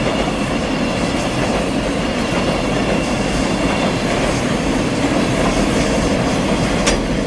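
Freight train wagons running on the rails: a steady, loud rumble of wheels and cars, with a sharp click near the end.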